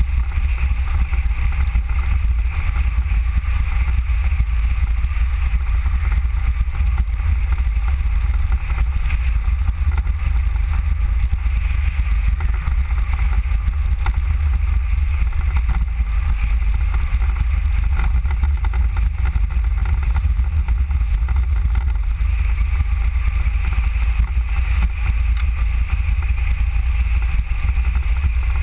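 Steady ride noise of a Mango velomobile rolling along an asphalt road: a low rumble of wind buffeting the microphone mixed with tyre noise, with a fainter hiss higher up.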